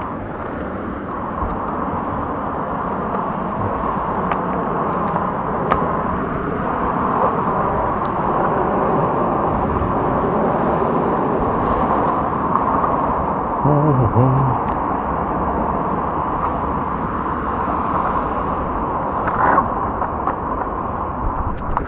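Steady ocean surf noise on a beach, a constant wash of breaking waves, with a brief pitched call or voice about 14 seconds in.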